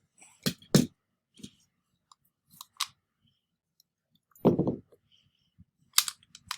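Tokarev pistol parts being handled during reassembly, as the slide stop is worked in past the barrel link: a few sharp metal clicks, and about four and a half seconds in a duller knock, the loudest sound.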